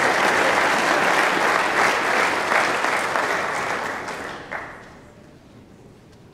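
Audience applauding, fading out about three-quarters of the way through, with one sharp knock as it dies away.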